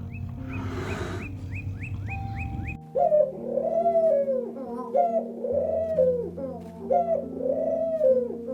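Bird calls over background music: a quick run of short high chirps, then from about three seconds in a lower cooing call repeated about once a second.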